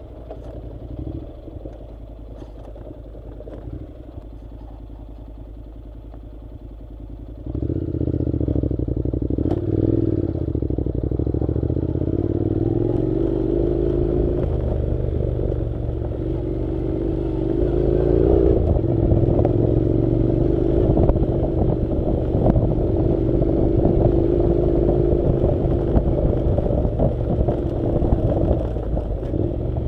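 Honda NC700's parallel-twin engine running at low revs, then picking up about seven seconds in and pulling under load with its pitch rising and levelling off. Clatter and scraping of gravel and the rattling bike on a rough dirt road run under it.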